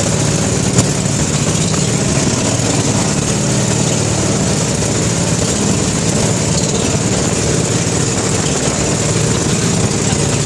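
Outrigger boat's engine running steadily at cruising speed under a constant rush of wind and water, with one brief knock about a second in.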